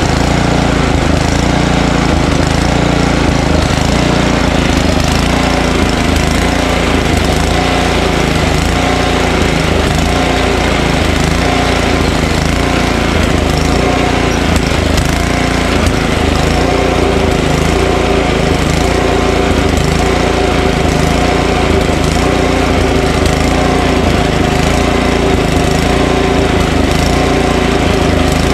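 Ariens ST1128 snowblower's 11 hp single-cylinder Tecumseh Snow King engine running steadily.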